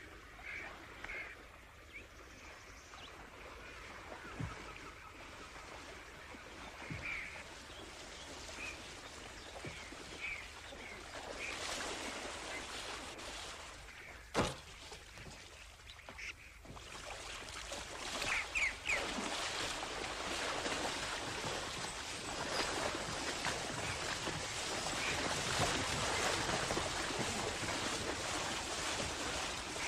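Short bird calls over a reedy pond, then, from a little past halfway, water splashing and churning as people wade through the shallows hauling a wooden sledge with a coffin on it, growing louder toward the end. A single sharp knock comes just before the splashing.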